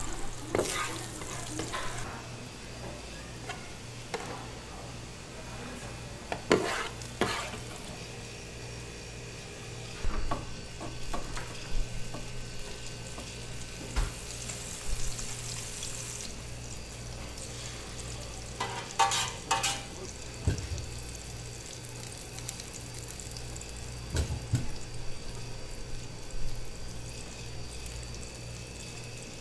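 Egg mixture frying with a gentle sizzle on an electric griddle pan, over a steady low hum. Plastic spatulas scrape and knock against the pan and the rolled omelette now and then, the clearest strokes coming in clusters.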